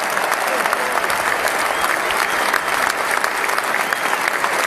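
Large football crowd applauding steadily, a dense mass of hand claps.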